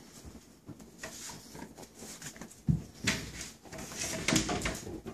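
Husky-wolf mix puppies moving about a wooden pen: scattered knocks and thumps against the boards and floor. The loudest is a thud a little past halfway, with a cluster of knocks near the end.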